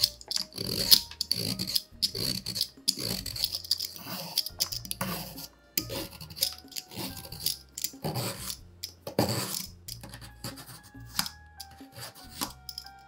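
Y-shaped julienne peeler scraping down a raw carrot on a plastic cutting board, shredding it into thin strips: repeated rasping strokes in quick, uneven succession. Soft background music underneath.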